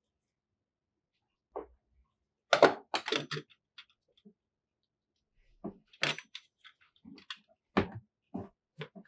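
Irregular clicks, knocks and clatter of hand tools and small parts being picked up, handled and set down, with the loudest run of knocks about two and a half seconds in and more scattered knocks in the second half.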